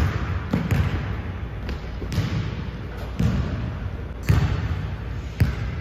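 A basketball bouncing on a hardwood gym floor: about seven separate thuds, irregularly spaced about one a second, each ringing on briefly in the hall's echo.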